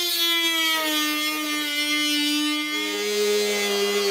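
Craftsman rotary tool with a diamond cutting wheel cutting through a plastic snowblower chute: a steady, high-pitched motor whine that sags a little in pitch as the wheel bites. A second, lower tone joins about three seconds in.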